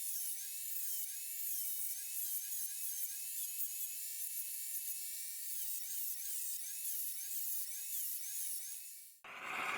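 High-speed rotary tool whining as it works the metal, its pitch dipping again and again as it is pressed on and eased off. It cuts off suddenly about nine seconds in, and a loud hiss takes over.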